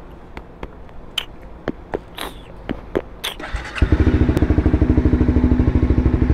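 A few light clicks and knocks, then about four seconds in a sport motorcycle's engine starts abruptly and settles into a steady idle with an even pulse.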